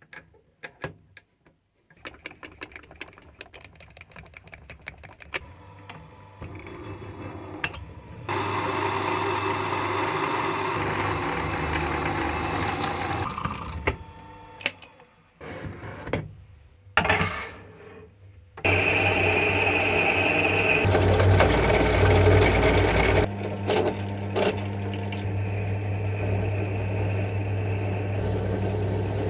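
Small drill press running and drilling holes into a metal workpiece clamped in a machine vise: a steady motor hum with cutting noise, in several stretches. It is preceded by light clicks and knocks of the part being handled and set in the vise.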